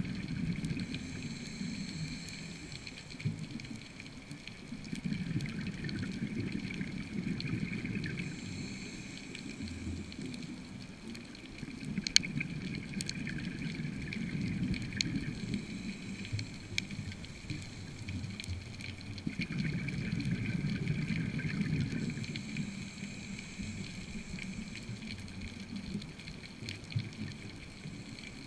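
Underwater bubbling and gurgling of a diver's breathing, swelling and fading in slow cycles every several seconds, with a sharp click about twelve seconds in.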